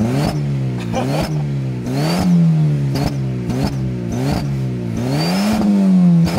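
Fiat Palio 1.0 four-cylinder engine revved in quick blips, rising and falling about seven times, two of them longer pulls. A short high whistle sounds at each rev peak from a cheap turbo-whistle piece fitted in the exhaust tailpipe.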